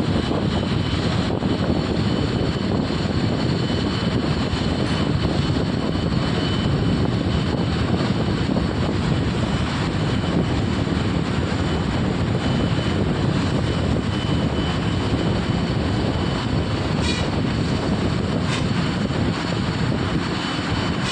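Lathe running with a steady, continuous mechanical drone.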